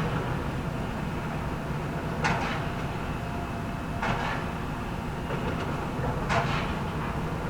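Excavator diesel engine running steadily with three sharp metallic clanks about two, four and six seconds in, as demolition debris and scrap metal are handled.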